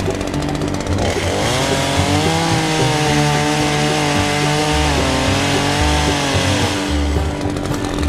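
Craftsman chainsaw revving up about a second in and cutting into a tree branch, its pitch sagging briefly under load partway through, then winding back down near the end.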